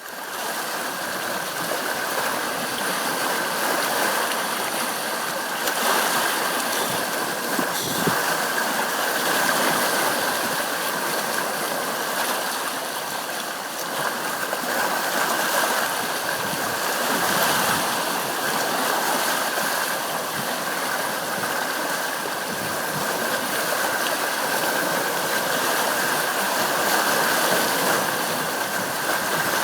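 Sea waves washing on the shore: a steady rushing that swells and eases gently.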